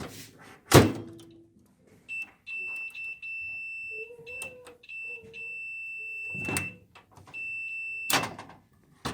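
Microwave door shut with a thud about a second in, then a multimeter's continuity beeper sounds a steady high beep, broken off briefly a few times, for about six seconds. The beep shows the door interlock switch closing when the door is shut: the contact is good. Another loud knock comes near the end.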